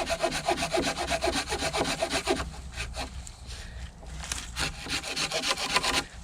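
Hand saw cutting through a dead wooden pole: quick, even rasping strokes for about two and a half seconds, then slower, uneven strokes.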